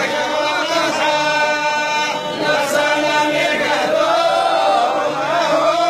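A large group of men chanting together in unison, holding long notes that bend from one pitch to the next: devotional chanting at a Sufi zawiya gathering.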